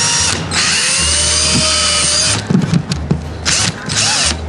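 Cordless drill running a twist bit into the aluminum deck of a boat. It runs in three spells: a brief one at the start, a longer one of nearly two seconds with the motor pitch shifting, and a shorter one near the end. A few knocks come between the last two spells.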